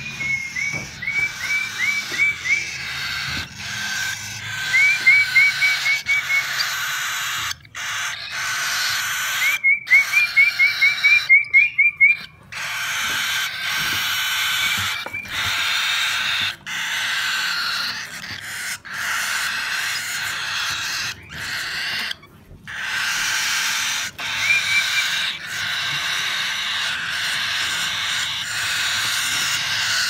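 Cockatiel chicks begging for food with long runs of raspy, hiss-like calls broken by short pauses. In the first half, several quick runs of short high chirps sound over them.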